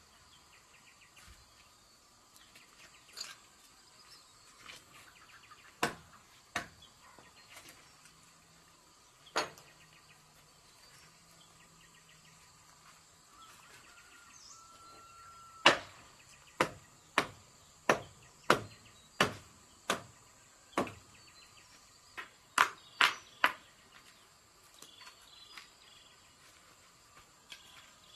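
Hammer blows on wood: a few scattered strikes, then a run of about eight evenly spaced blows, one every second or less, and a quick group of four. Insects drone steadily underneath.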